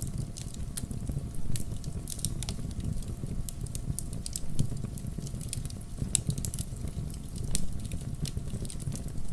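Wood campfire crackling: irregular sharp pops and snaps over a steady low rumble of burning.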